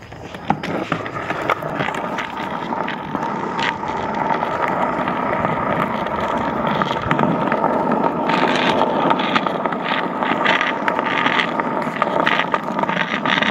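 Skateboard wheels rolling over paved ground: a steady rolling rumble with scattered clicks and knocks.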